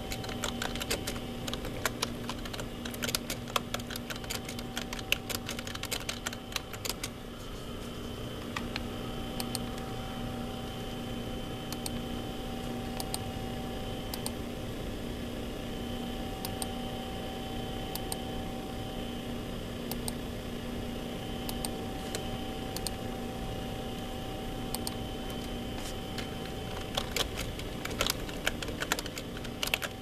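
Steady electrical hum of a few held tones, with scattered sharp clicks that bunch up a few seconds in and again near the end.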